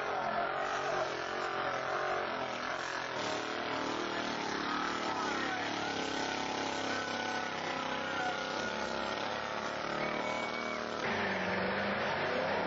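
Off-road 4x4's engine running and revving through a mud course, its pitch rising and falling over a steady noisy background; the sound changes abruptly near the end.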